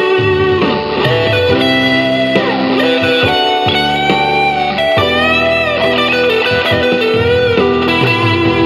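Lead melody on a Fender Japan ST-57 Stratocaster electric guitar, with sustained notes and string bends, over a bass and drum backing.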